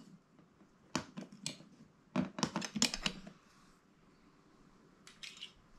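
Toy tongs clicking and clacking against play-food pieces as they are picked up and set down: a single click about a second in, a quick run of clacks around two to three seconds in, and a couple more near the end.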